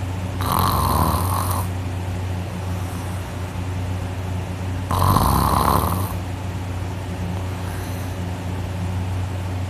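Loud human snoring through a mouth held wide open with the nose pinched shut: two long rasping snores, one about half a second in and one about five seconds in, each lasting just over a second. The snorer feels it as the soft palate vibrating hard. A steady low hum runs underneath.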